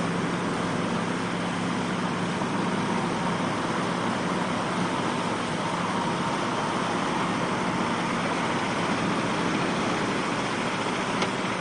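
Steady rush of wind and breaking surf, with the low drone of a heavy truck engine running under it in the first half. A single click near the end.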